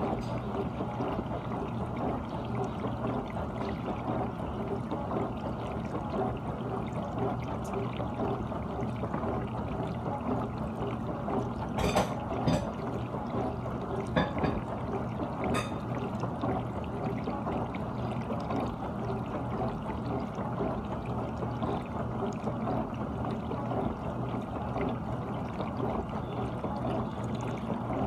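GE dishwasher running its cycle: a steady rush of water splashing inside the tub, with three sharp clicks about midway.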